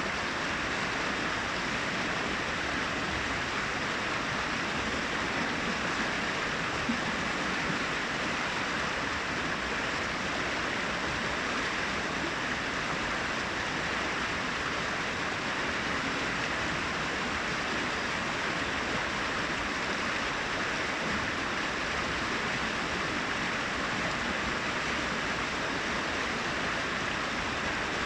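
Brook water running and splashing over rocks in a steady, even rush.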